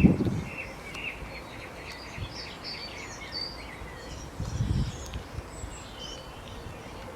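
Small birds chirping in a busy series of short high notes against an outdoor background, with a low dull thump right at the start and another about four and a half seconds in.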